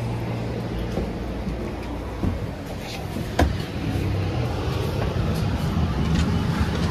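Steady low hum and road noise inside a moving city transit bus, with a sharp knock or rattle about halfway through.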